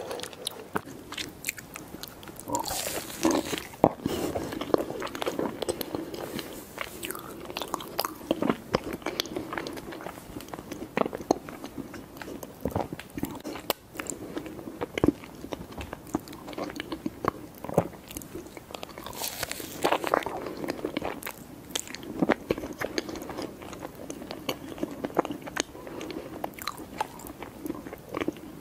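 Close-miked eating of mousse cake: soft, sticky chewing with many sharp wet mouth clicks and smacks.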